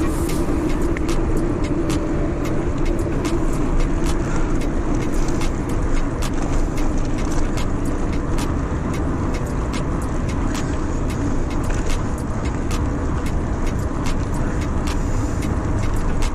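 Road and traffic noise heard while riding along a road: a steady, loud rumble with frequent light clicks throughout.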